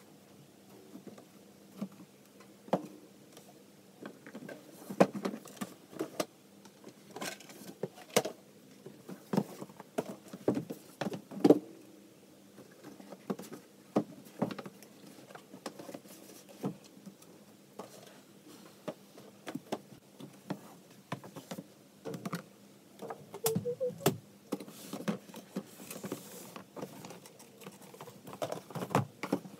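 Cardboard boxes being handled and stacked onto a shelf: irregular taps, knocks and scrapes of card against card, with a brief squeak about two-thirds of the way in.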